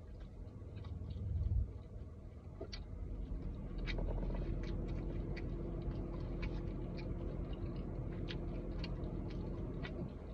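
Close-up chewing and wet mouth clicks of someone eating a burger, over a low steady hum inside a car. A low rumble swells about a second in, and a faint steady tone joins the hum about four seconds in.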